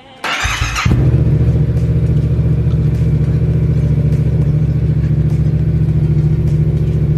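Yamaha MT-07's parallel-twin engine started on the electric starter: a brief whir of cranking, then it catches under a second in and settles into a steady idle, run to warm the oil before an oil change.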